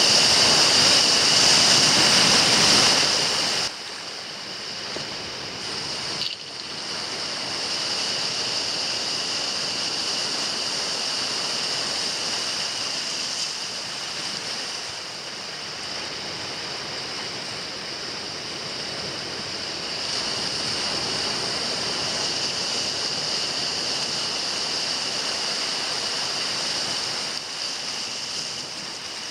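Sea waves washing against a rocky shore, a steady rushing noise that is louder for the first few seconds and then settles lower. A steady high-pitched hiss runs over it.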